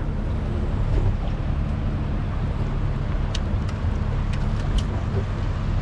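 Steady low engine rumble with a few faint ticks about halfway through.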